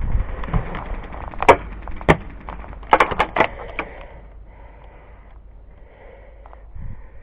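Airsoft gun firing single shots: a sharp crack about a second and a half in, another half a second later, then a quick run of three or four more around the three-second mark. Wind rumbles on the microphone at the start.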